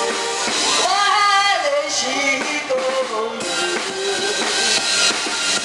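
A woman singing live through a microphone and PA, backed by keyboard and drums; about a second in she holds a long note with vibrato.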